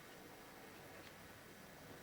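Near silence: faint room tone and tape hiss.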